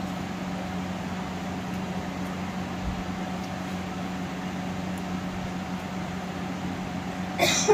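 Steady mechanical hum with a low, even tone, like a fan or appliance running, and a short clatter just before the end.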